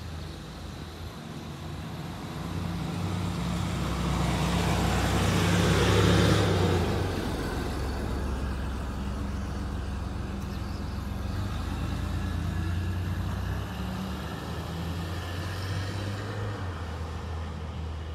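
A motor vehicle passing close by: a low engine hum with road noise that swells to a peak about six seconds in, then fades slowly. The engine note shifts a couple of times near the end.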